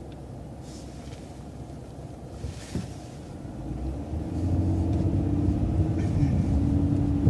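City bus engine and drivetrain heard from on board: a low rumble, growing louder about four seconds in as the bus gets under way, with a steady whine.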